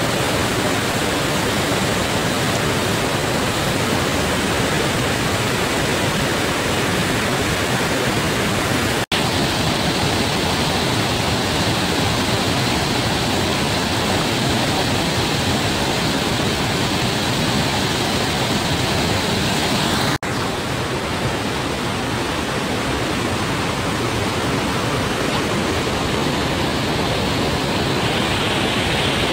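Waterfall pouring over rocks into a pool: a loud, steady rush of water, broken by two brief dropouts about nine and twenty seconds in.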